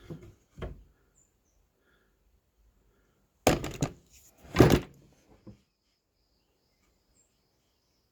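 A pneumatic brad nailer fires twice, about a second apart, driving brad nails into pine fence-picket boards. Lighter knocks of the wood being handled come before and after.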